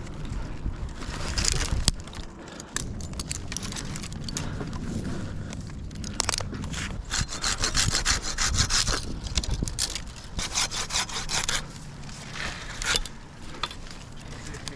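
Hand pruning saw cutting through a tree branch: runs of rasping back-and-forth strokes through wood, broken by short pauses.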